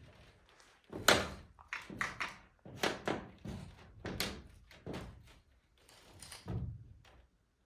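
Footsteps and knocks of a person moving across a greenhouse roof: about nine dull thumps at an uneven walking pace.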